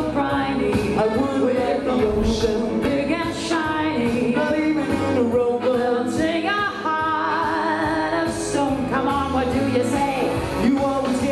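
A man and a woman singing a 1930s–40s style song into microphones, with a recorded instrumental backing.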